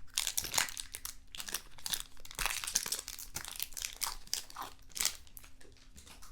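Foil wrapper of a trading card pack crinkling and tearing as it is opened by hand, with dense irregular crackles that thin out near the end.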